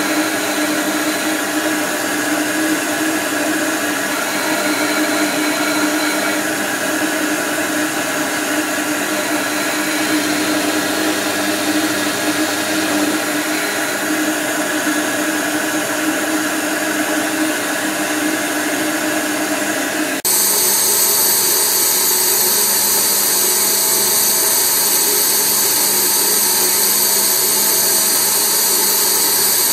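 Bench disc sander running steadily while a piece of amber is ground against its spinning abrasive disc. About two-thirds of the way through it gives way abruptly to the louder, higher, hissier running of a Sirio bench polishing motor spinning a foam buffing wheel.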